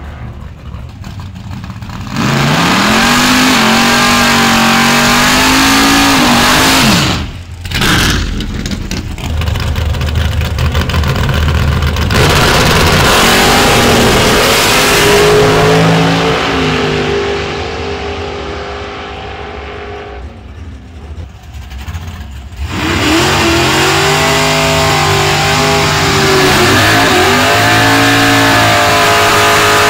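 Drag race cars launching and accelerating hard down the strip, their engines revving and rising in pitch. One loud run starts about two seconds in, the sound dies away in a lull past the middle, and another launch comes in loudly near the end.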